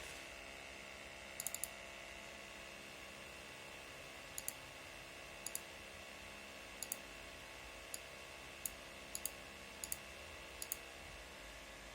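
Sharp, small clicks: a triple about a second and a half in, then pairs and single clicks roughly every second. Under them is a steady faint hiss and hum.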